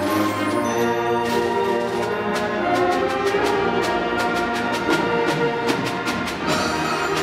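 Student concert band playing: brass and woodwinds hold chords while sharp percussion strikes come about four a second from about a second in.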